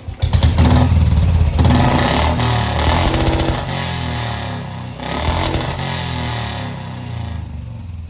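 Royal Enfield Bullet 350's single-cylinder engine revved hard from idle in three surges, the exhaust firing in rapid pulses, then easing back.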